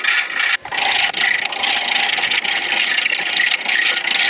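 Turning tool cutting an acrylic pen blank spinning on a midi lathe: a steady scraping hiss as the blank is roughed toward round, with a brief break about half a second in.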